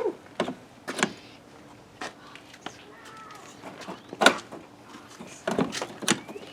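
Power door lock actuator in a 1995–2000 Chevy truck door being cycled to lock and unlock, giving a series of sharp clicks and clunks at uneven intervals.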